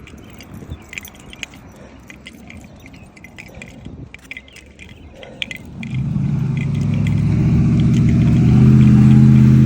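A motor vehicle's engine approaches from about six seconds in and grows steadily louder, loudest near the end. Before it, light jingling and clicks.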